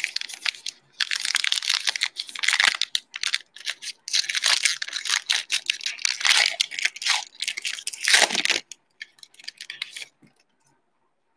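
Wrapper of a 2019-20 Panini Mosaic NBA trading card pack being torn open and crinkled in the hands: crackling in bursts for several seconds, loudest shortly before it stops about ten seconds in.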